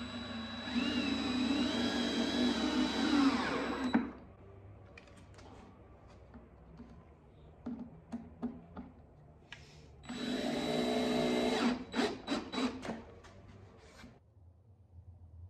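DeWalt cordless drill/driver driving long wood screws into a lumber board: the motor whines through one long run of about three seconds, then a second run of about two seconds that ends in several short trigger bursts as the screw is seated. Light clicks and taps of handling the screws come between the runs.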